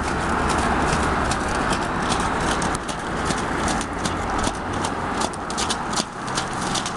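Hooves of a draft-cross horse trotting through wet mud and slush: a quick, uneven run of squelching, splashing hoof strikes over a steady rushing noise.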